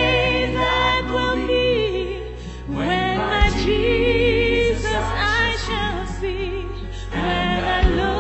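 A woman singing a gospel praise song with vibrato into a handheld microphone over a backing track with a steady bass. Two short low thumps come through, one midway and one near the end.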